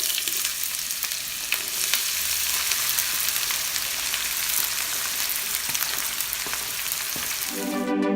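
Food sizzling as it fries in a hot pan: a steady hiss with many small crackles. Music comes in near the end.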